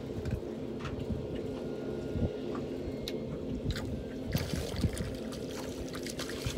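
Water sloshing and trickling around a small boat over the steady hum of its engine, with a few light knocks scattered through.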